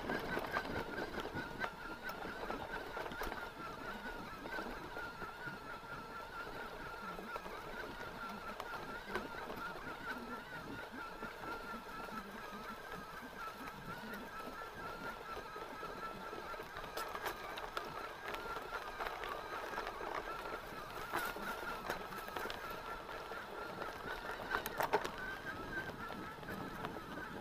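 Mountain bike running fast over a dirt trail: a steady, wavering high whine from the drivetrain over rough tyre and frame rattle, with a few sharp knocks from bumps in the second half.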